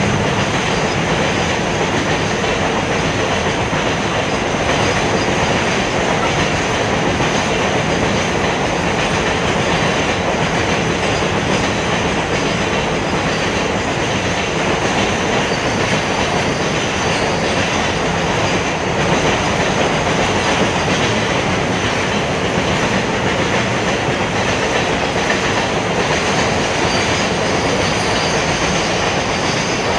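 Double-stack container wagons of a freight train rolling past close by: a loud, steady rush of steel wheels on rails.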